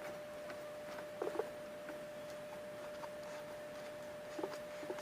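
A few faint, scattered clicks and taps of plastic parts being handled as a bottle cap is fitted onto a plastic tub lid, over a faint steady whine.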